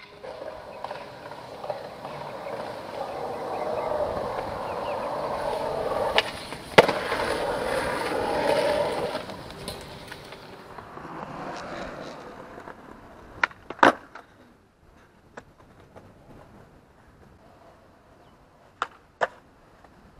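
Skateboard wheels rolling on pavement, swelling and then fading away over the first half. Later come two pairs of sharp clacks, each pair about half a second apart: the board's tail popping and the board landing on a trick.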